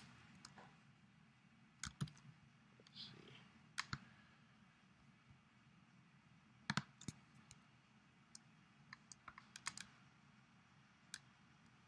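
Sparse single clicks of a computer mouse over near-silent room tone, with a quicker run of clicks about nine to ten seconds in.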